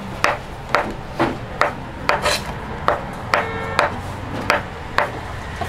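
Kitchen knife chopping a rolled log of hotteok dough into portions, the blade knocking on a wooden board with a dozen or so sharp knocks at about two a second.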